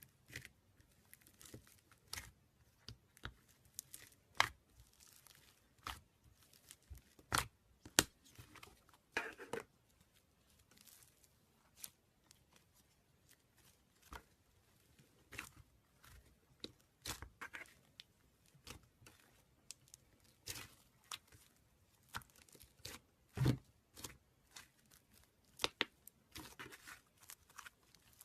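Slime being worked by hand, giving irregular sharp crackles and pops with a few louder snaps among them.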